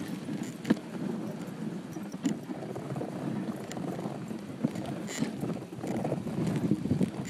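Dog sled moving over snow: a steady scraping rush from the runners and the team's running feet, with scattered clicks and knocks from the sled.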